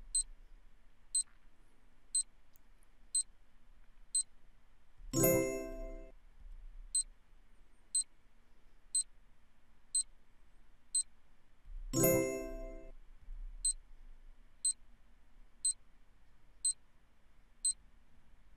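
Quiz countdown timer sound effect: a short electronic tick once a second, five ticks in a row, each run closed by a ringing chime. Three runs, marking each question's five-second answer time; the third chime starts right at the end.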